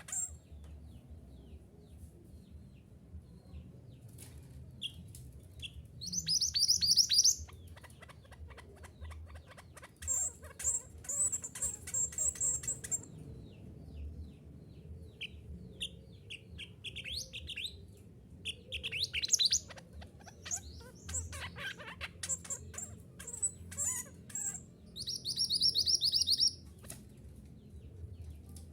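Mantenan gunung, a small songbird, singing in bouts of quick high chirps and trilled phrases, with short gaps between them. A faint steady low hum sits beneath.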